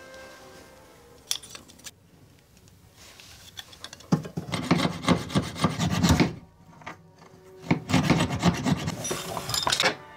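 Fine-toothed fret saw blade cutting through a small dark hardwood block from a drilled hole. It makes quick back-and-forth rasping strokes in two spells of about two seconds each, with a short pause between, after a few quiet handling clicks.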